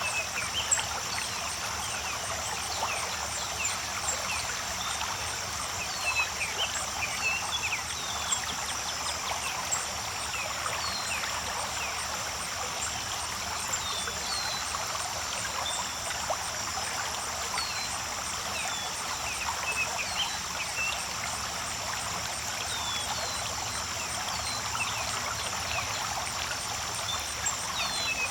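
Creek water running and splashing in a steady rush, with short high falling chirps scattered throughout over a steady high-pitched hum.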